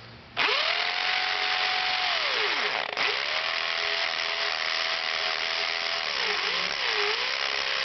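DeWalt DWD520 hammer drill running in hammer mode, drilling into aggregate concrete with a 1/2-inch bit: a steady hammering rattle over the motor's whine. The motor slows almost to a stop just before 3 seconds in, starts again at once, and sags in speed twice around 6 to 7 seconds in as the trigger is eased to find the speed where the bit bounces well.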